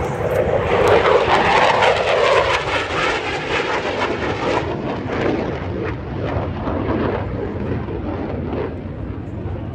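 F-16 fighter jet's engine noise as it flies past, loudest in the first few seconds and fading as it pulls away, the upper hiss thinning out about halfway through.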